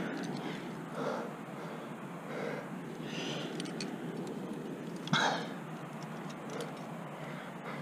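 A rock climber breathing hard while straining up a crack: several heavy exhales, the loudest and sharpest about five seconds in, with a few light clicks partway through.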